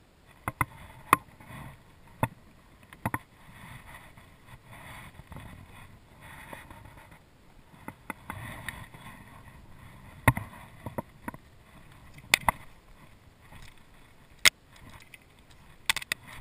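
Kayak paddling and handling noise: about a dozen sharp knocks of the paddle shaft and gear against the kayak hull at irregular intervals, over quieter swishes of water.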